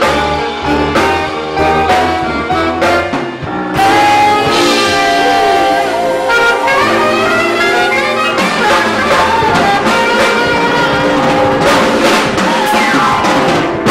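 A sousaphone and a saxophone playing jazz live. Low sousaphone notes carry the first few seconds, then saxophone lines with slides take over.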